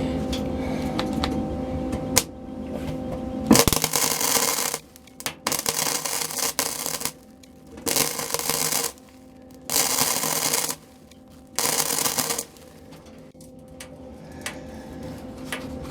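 Welding arc tack-welding a small steel patch into a truck cab floor: five bursts of crackling arc, each one to two seconds long, with short pauses between them and a faint steady hum underneath.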